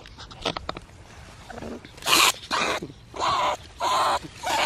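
A few faint clicks, then from about two seconds in a run of harsh, loud animal calls, about one every 0.6 s.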